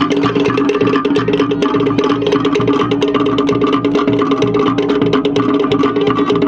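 Cook Islands drum ensemble playing a fast drum-dance rhythm: wooden slit drums (pate) struck in rapid, even strokes over a deeper drum beat.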